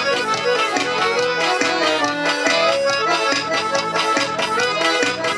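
Live forró band playing an instrumental passage, the accordion carrying the melody over a steady percussion beat.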